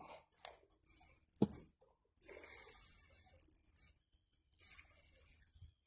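Spinning reel drag (Shimano Stradic CI4 4000) giving line in three bursts of high-pitched buzzing as a big giant trevally takes line against it. A single knock comes about a second and a half in.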